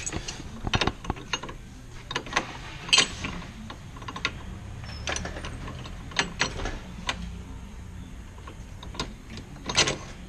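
Irregular metallic clicks and clanks of hand tools and hardware as a longer bolt is fed through an ATV track bracket and the wheel spindle. A low steady hum runs underneath.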